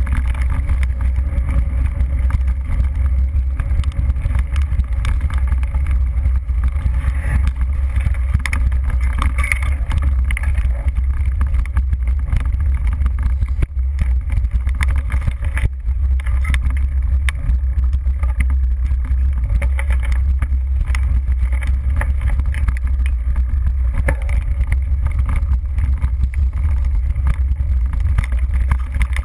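Wind buffeting a GoPro HD camera's microphone while a mountain bike rides a rough dirt trail, a steady deep rumble with frequent small rattles and knocks from the bike over the bumps.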